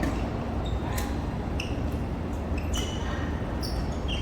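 Badminton racket striking an Aeroplane goose-feather shuttlecock once, a sharp crack about a second in, followed by several short high squeaks of shoes on the court floor.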